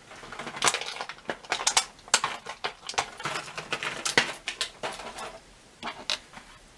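Small plastic swap hands for an action figure clicking and clattering against each other as they are picked through, an irregular run of sharp clicks that thins out near the end.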